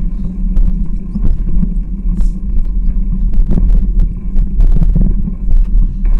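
Wind rumbling on the microphone of a camera on a moving bicycle, with scattered clicks and rattles from the bike over the road.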